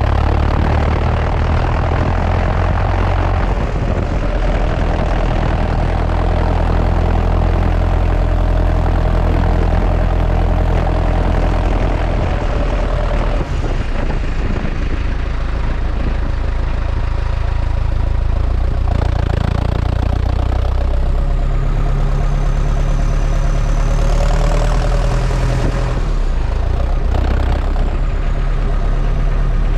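New Holland T5050 tractor's diesel engine running steadily under way on the road, heard close to its upright exhaust stack. The engine note drops about halfway through and picks back up a few seconds later.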